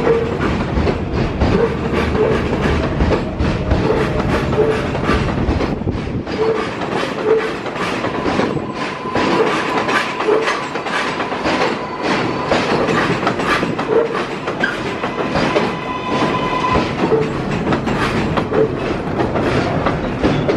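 R188 subway train on the 7 line rolling along an elevated platform and slowing as it pulls into the station. Its wheels clack over the rail joints, the clacks coming further apart as it slows, and a steady high whine runs through the middle stretch before cutting off.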